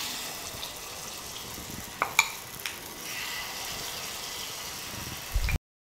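Millet batter sizzling in hot oil as it is spooned into the wells of a paniyaram pan, with a few light clinks of the spoon against the pan about two seconds in. A low thump comes just before the sound cuts off suddenly near the end.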